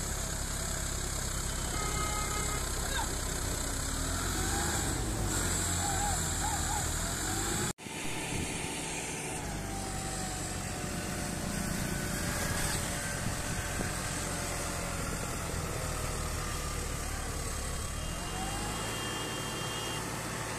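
John Deere tractor's diesel engine running hard under heavy load while hauling an overloaded sugarcane trolley, with its front wheels lifting off the ground. The sound cuts out for an instant about eight seconds in.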